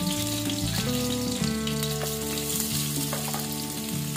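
Sliced onion dropped by hand into hot oil in a kadai, sizzling and crackling as it fries.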